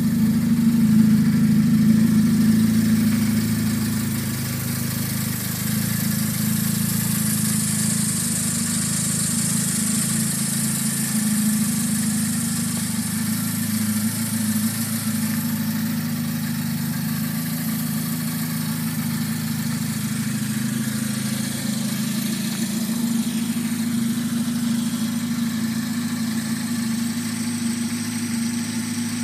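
2019 Morgan Plus 4 110 Edition's four-cylinder GDI petrol engine idling steadily.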